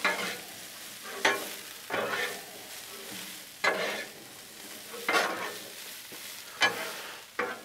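Metal spatulas scraping across a steel flat-top griddle, tossing broccoli and onion that sizzle on the hot surface. The scrapes come irregularly, about one every second or so, over a steady sizzle.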